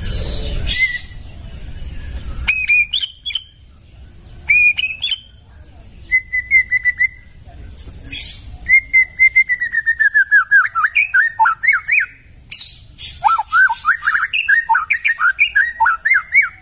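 White-rumped shama singing: short whistled phrases with pauses between them, then long runs of rapid swooping notes mixed with sharp high clicks over the last half.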